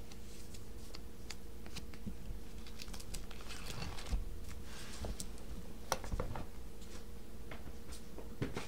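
Plastic binder sleeve pages rustling and crinkling as a trading card is slid into a pocket and the pages are turned, with scattered sharp clicks and taps. A faint steady hum runs underneath.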